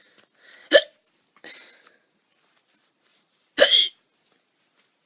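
A woman hiccuping loudly, twice, about three seconds apart; the second hiccup is a little longer than the first.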